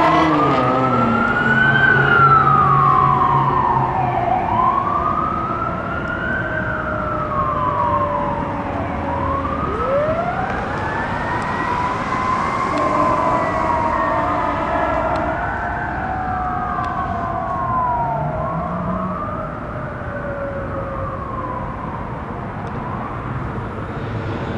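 Fire truck sirens on a code 3 run. A Federal Q2B mechanical siren winds up and slowly coasts down, over an electronic siren wailing up and down every few seconds. They fade gradually as the truck moves away.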